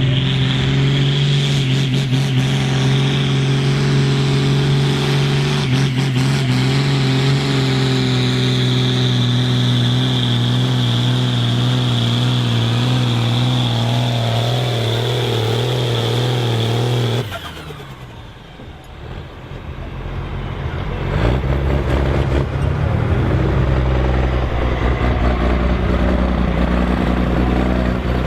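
Pull tractor's diesel engine running hard at steady, high revs for about seventeen seconds, then winding down suddenly. After a short lull, a deeper engine rumble builds up again.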